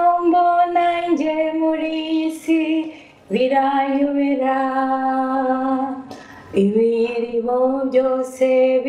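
A woman singing unaccompanied into a handheld microphone: one voice on long held notes, in three phrases with short breaks about three and six seconds in.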